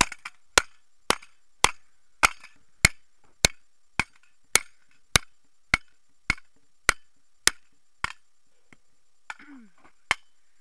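A computer hard drive being struck hard and repeatedly: sharp blows at an even pace of almost two a second, stopping about eight seconds in, with one more blow near the end.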